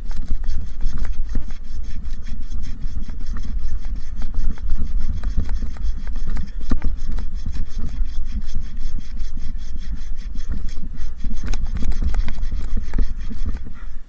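Curved pruning handsaw sawing through a tree trunk in steady back-and-forth strokes, cutting the back cut on a rigged section.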